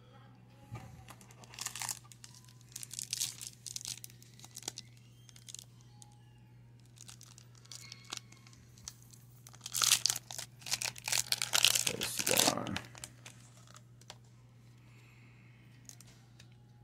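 Foil wrapper of a baseball card pack being torn open and crinkled by hand in irregular rustling bursts, loudest for a few seconds in the second half, over a steady low hum.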